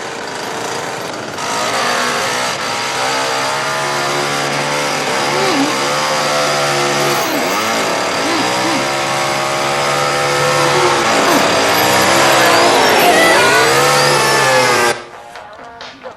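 Two-stroke chainsaw running loudly and being revved, with high wavering screams over it; it stops abruptly near the end.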